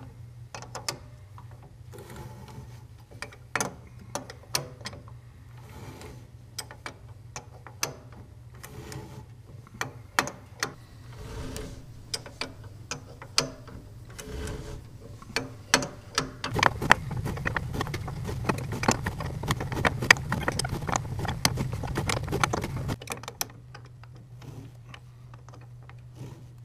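Spanner wrench clicking and scraping against the notched spring-preload nut on the center track shock of a 2015 Polaris Pro-RMK snowmobile, as the nut is turned up the threads to tighten the spring. The metal clicks are irregular, then come quicker and louder for several seconds past the middle, over a steady low hum.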